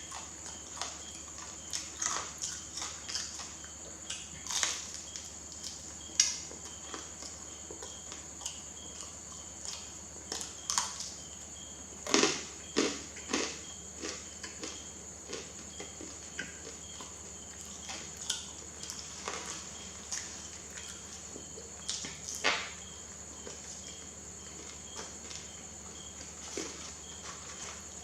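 Close-miked mouth sounds of someone eating a banana: irregular soft, wet chewing smacks and clicks, busiest a little before the middle, over a steady high-pitched hiss.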